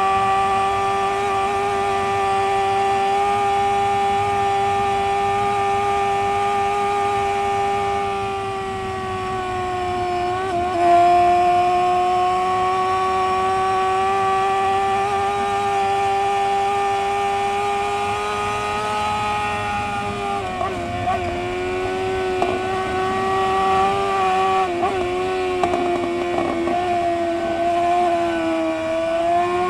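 Honda HRC superbike's inline-four engine at full throttle, heard on board: a steady high-revving note held for long stretches, with a brief break in the note about ten seconds in and several quick dips and rises of the revs later on.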